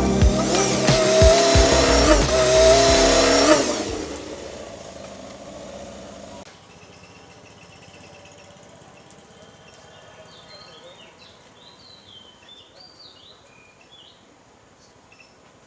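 A motorcycle's engine running loudly as it passes on the road, over background music, fading away about four seconds in. Then quiet outdoor ambience with brief bird chirps.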